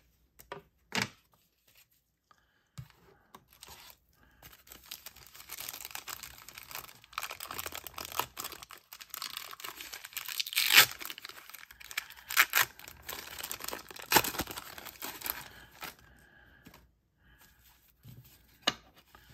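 A 1991 Pro Set NFL trading-card pack's wrapper being torn open and crinkled in the hands, with several sharper tears in the middle of it.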